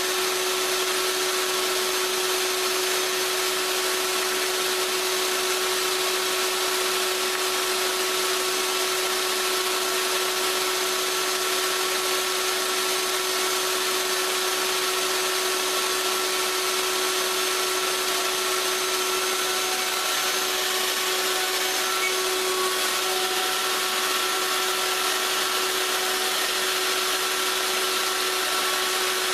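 Electric wood router running steadily, cutting a pass along the edge of the table top with its added maple strips, with a constant whine over the cutting noise.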